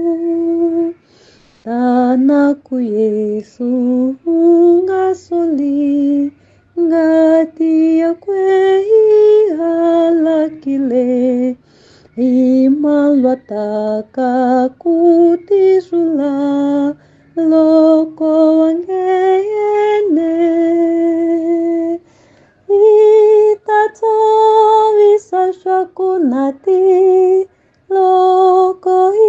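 A woman singing a hymn solo and unaccompanied, in an African language, in held phrases with short pauses for breath between them.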